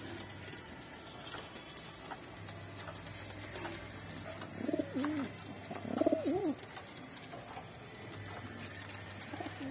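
Domestic pigeons of the Border Wale breed cooing: two rolling coos, one about four and a half seconds in and one about six seconds in.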